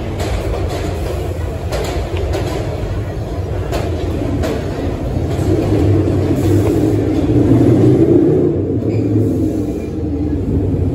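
New York City subway train running past an elevated station platform: a steady rumble of steel wheels on rail with a few sharp clicks in the first half, growing loudest in the second half as the cars roll by close.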